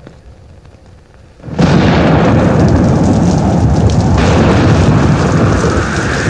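Thunderstorm: a loud rumble of thunder over heavy rain, starting suddenly about a second and a half in after a faint low rumble.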